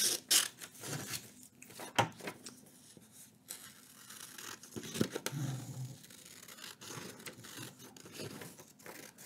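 Sheets of printer paper rustling and sliding as printed pages are handled and laid on top of one another, with scattered light clicks and taps.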